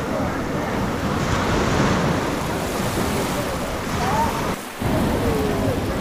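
Sea waves washing onto the shore, with wind on the microphone and faint voices of people on the beach. The noise drops away for a moment about four and a half seconds in.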